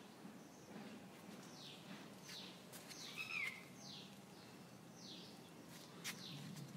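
A bird calling over and over, faintly: short chirps that slide downward in pitch, about one a second, with one louder call a little after three seconds in.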